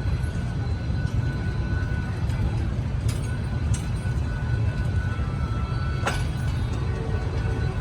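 Czech-built D12E diesel-electric locomotive and its train rumbling steadily, with one sharp click about six seconds in.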